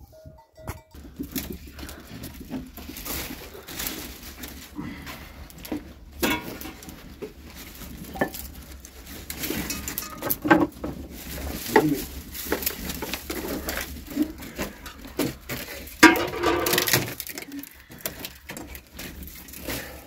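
Scattered clicks, knocks and clatter of pans and cooking utensils being handled, with a brief pitched sound about three-quarters of the way through.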